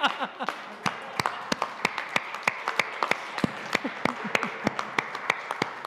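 Audience applauding, with sharp single claps from someone close by standing out above the crowd's clapping. A laugh trails off in the first moment.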